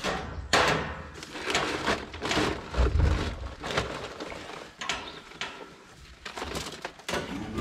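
Rummaging in a metal feed bin: rustling feed sacks, scraping and irregular knocks and clatters, with a couple of dull thumps, one about three seconds in.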